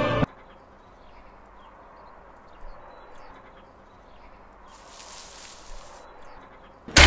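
Music cuts off just after the start, leaving quiet outdoor ambience with faint bird chirps. About five seconds in comes a brief rustle of shrub leaves and branches as a small child's bicycle is pulled out of a bush. Music comes back in loudly at the very end.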